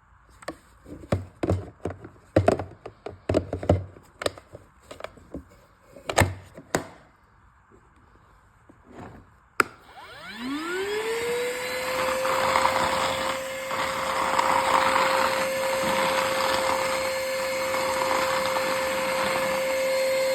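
Cordless vacuum cleaner running on a Makita 18 V battery. It is handled first with a series of clacks and knocks, then switched on with a click about ten seconds in. Its motor whines up quickly and settles into a steady whine with a rush of air.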